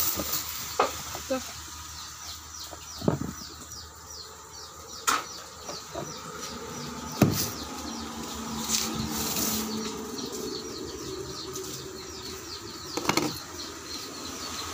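A few sharp knocks and clicks from handling containers of grubs on a table, over a rapid series of short high chirps in the background repeating about three times a second through most of the first two-thirds.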